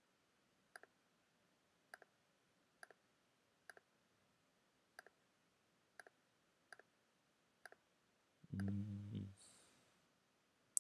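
Computer mouse clicking, each click a quick double tick of button press and release, about one a second, eight times. Near the end a short low hum from a voice.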